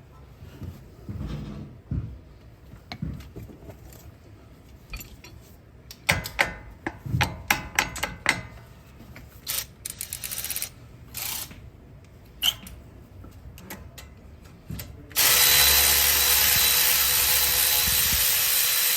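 Metal clinks and taps of hand tools on brake hardware, then a power tool, such as a cordless drill or driver, runs steadily for about four seconds near the end.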